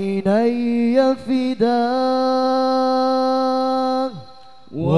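Male sholawat vocal group singing an Arabic devotional melody a cappella through microphones. It is an ornamented, gliding line that settles into one long held note, breaks off about four seconds in, and starts again near the end.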